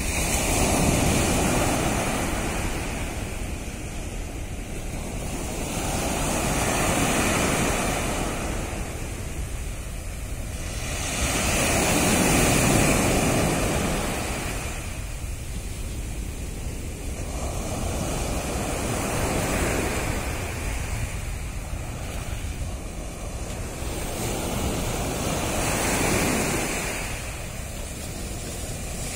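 Sea waves breaking and washing up a sandy beach in a choppy sea, the surf swelling and fading about five times, roughly every six seconds.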